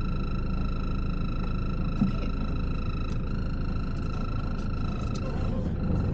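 Engine running with a steady low rumble and a steady high whine over it; the whine cuts off about five seconds in while the rumble carries on.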